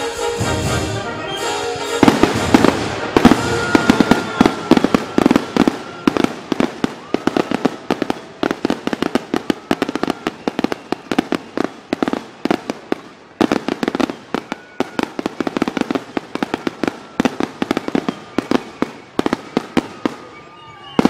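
A fireworks display: after about two seconds of music, rapid, dense crackling and popping from crackle-tailed shells, many sharp bangs a second.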